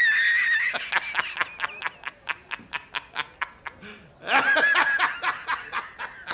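A man's hearty laughter: a long high cackle that breaks into a rapid run of short 'ha' pulses, about four a second, trailing off, then a second loud burst of laughter about four seconds in.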